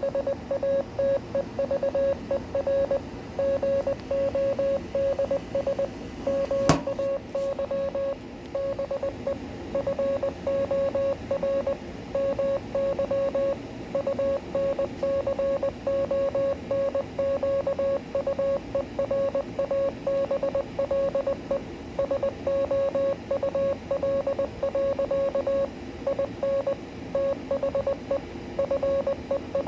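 Morse code sent as a steady mid-pitched tone keyed on and off in dots and dashes, spelling out the poem Invictus, over a steady background hiss. A single sharp click stands out at about seven seconds in.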